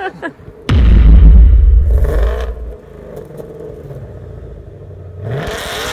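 Car engine sound that comes in suddenly, loud and deep, about a second in, drops back after a couple of seconds to a lower steady running sound, then revs with rising pitch near the end.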